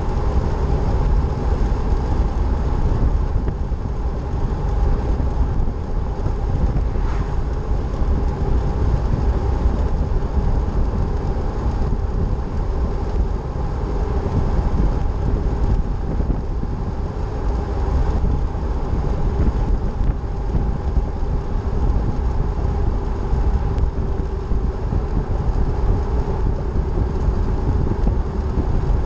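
A car driving at steady highway speed: a constant low rumble of tyres on pavement and engine, with a faint steady hum over it.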